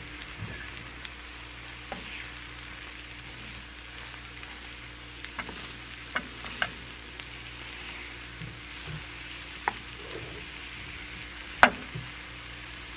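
Eggs scrambled with onion and green chili sizzling in a frying pan while a wooden spatula stirs them, with a few sharp knocks of the spatula against the pan, the loudest near the end.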